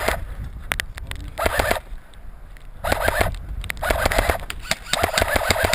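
Airsoft electric gun firing several short full-auto bursts, each a rapid run of even clicks with a buzzing whine; the last burst is the longest.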